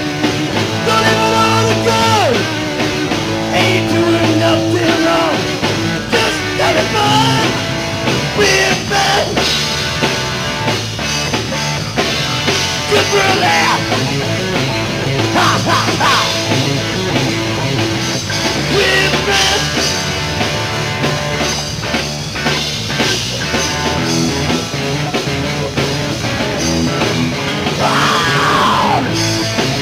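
Rock band playing live on electric guitar and bass guitar, an instrumental stretch with sliding notes near the end.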